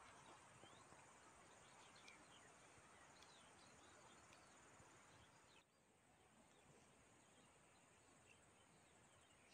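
Near silence: faint outdoor background hiss with a few tiny scattered chirps.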